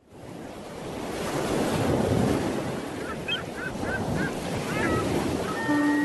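Ocean surf: waves washing in, swelling up from silence over the first two seconds. A run of short bird calls comes in about halfway, and a held low tone starts near the end.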